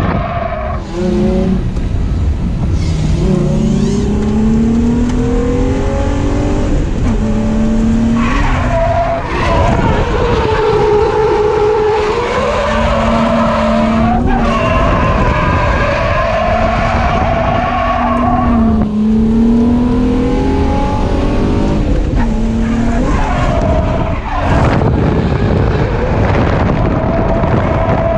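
Drift car's engine revving hard on the throttle, its pitch climbing and falling several times with throttle and gear changes, while the tyres squeal through long slides. Heard from inside the cabin.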